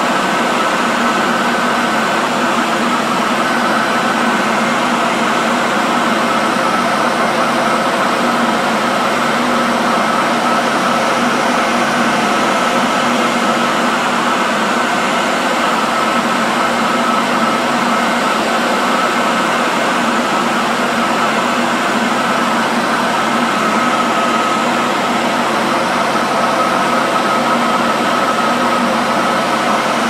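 Electric hand dryer blowing continuously: a loud, even rush of air with a steady motor whine over it.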